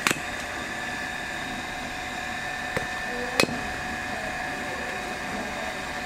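A hatchet striking a stick of firewood on a wooden stump to split it into kindling: three sharp chops, one right at the start, a lighter one and then the loudest a little later. A steady hum runs underneath.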